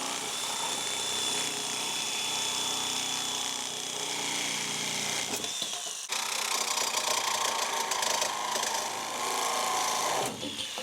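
Reciprocating saw (Sawzall) cutting through rusted, seized headlight actuator parts, in two runs with a short break about six seconds in, the motor winding down near the end.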